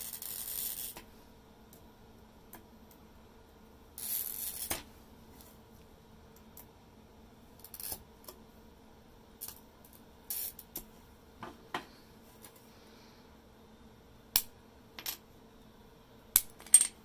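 A glass scorer's small metal wheel drawn across a strip of white glass twice, each score a scratchy hiss under a second long, at the start and about four seconds in. Then scattered sharp clicks and snaps, loudest near the end, as the strip is handled and broken along the score lines with pliers.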